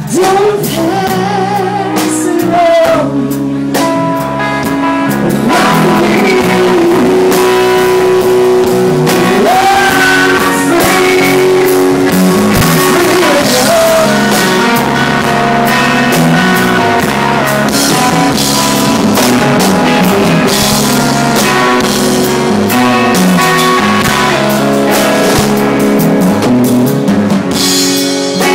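A band jamming in a rock-blues groove, with guitar, bass and drum kit, and a wavering vocal line over it in which no words are made out.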